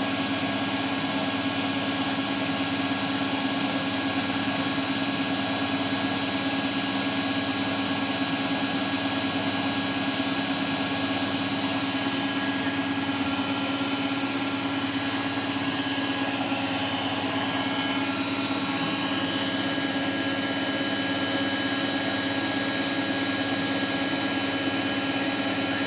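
Beko Eco Care WMA 1510 W washing machine in its final spin, its drum spinning at speed with a steady motor whine.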